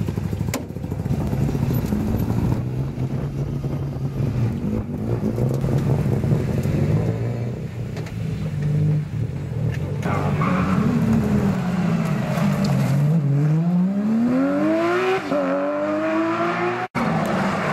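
Rally car engines running at low revs as the cars move off, then an engine accelerating hard, its pitch rising steeply over about three seconds. There is a brief dropout near the end.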